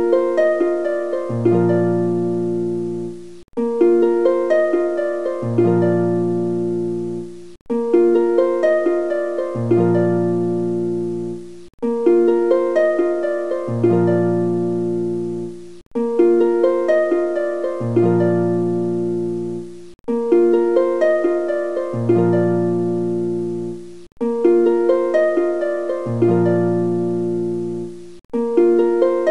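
Background music: a short plucked-string melody looping about every four seconds, with a brief gap between repeats.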